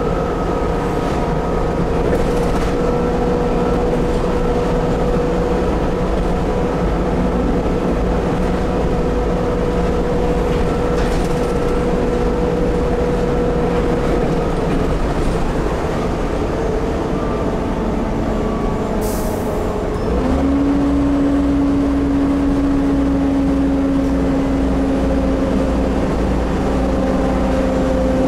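Volvo B7TL double-decker bus's diesel engine and driveline running under way, heard from the upper deck, with a steady whine that slowly drifts down. About two-thirds of the way through there is a short hiss of air, then the engine note steps up to a new, slowly rising pitch and the rumble grows louder as the bus pulls harder.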